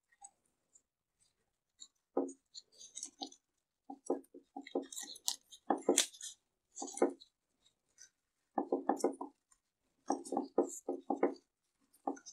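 Handling noises as a small plastic orchid basket is pressed down into a wooden slatted basket lined with coco husk and chunky bark: repeated short knocks and rubs of plastic against wood, with the bark and husk crackling and rustling.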